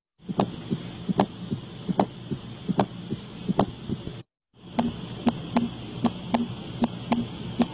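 Heartbeat recording: regular beats a little under one a second, about 75 a minute, over a steady hiss. The sound cuts out briefly a little after four seconds in.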